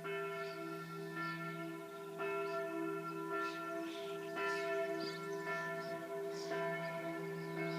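Church bells ringing the 6 pm peal: fresh strikes about once a second, each ringing on and overlapping the next, with a steady low hum beneath.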